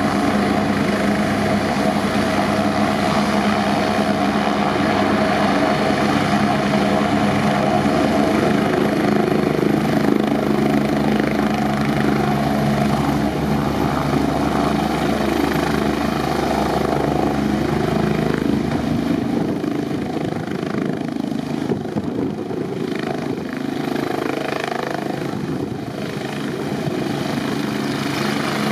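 AgustaWestland AW109 Grand helicopter's twin turbine engines and main rotor running steadily on the ground, then lifting off near the end.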